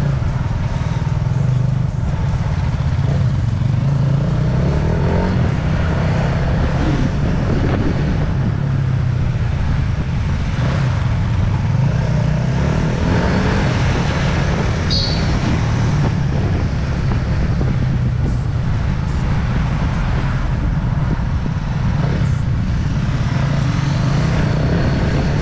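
Motorcycle engine running under way, heard from the rider's own bike, its note wavering up and down with the throttle over a steady rush of wind and road noise.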